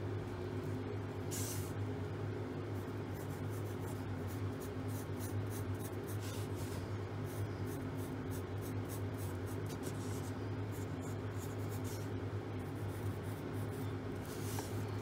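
A pencil scratching on paper in quick, repeated short strokes as a sketch is drawn and shaded, over a steady low hum.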